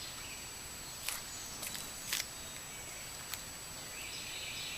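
Quiet outdoor background of steady insect noise, stronger again near the end, with four faint sharp ticks in the first few seconds.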